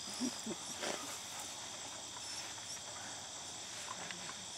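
Field crickets and other insects chirring steadily in a high, unbroken shimmer, with a dog panting faintly in a few short breaths near the start.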